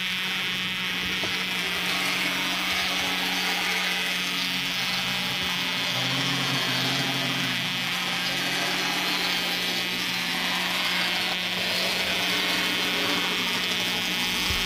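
Small electric motor of a 1/87-scale model tram (KW Trams/Bec drive) running steadily along the track in an initial motor test, a continuous even whine.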